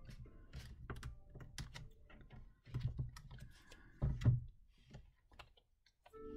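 Plastic-sleeved stamp sets being flipped through and handled: a run of light clicks and crinkles, with two louder bursts of handling about halfway through.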